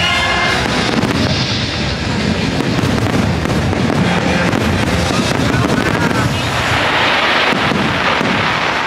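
Fireworks barrage: many aerial shells bursting in rapid succession, bang after bang, over a music soundtrack.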